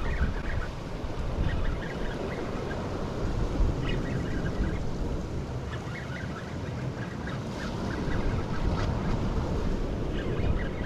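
Wind buffeting the microphone over ocean surf on rocks, a steady rumble, with clusters of short high chirps coming and going.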